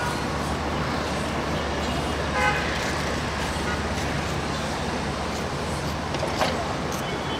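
Steady city road traffic noise with a low hum, a short vehicle horn toot about two and a half seconds in, and a sharp knock near the end.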